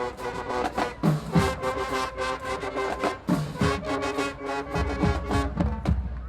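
High school marching band playing: the brass section holds loud chords over frequent drum strokes.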